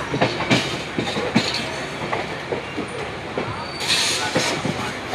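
Passenger train wheels clattering irregularly over rail joints and yard points, heard from an open coach door as the train rolls along, over a steady running rumble. A rush of higher noise comes about four seconds in.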